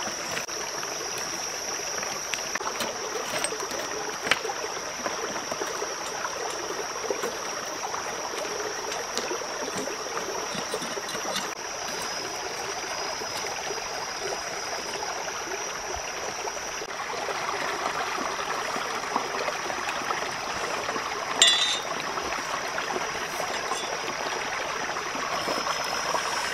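A stream running steadily, with a steady high-pitched whine over it. One sharp short sound stands out about 21 seconds in.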